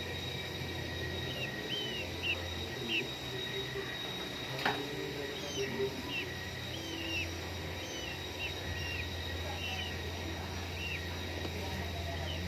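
Young murai nestlings giving short, high begging chirps, one every half second to a second, over a steady low hum. A single sharp click comes about halfway through.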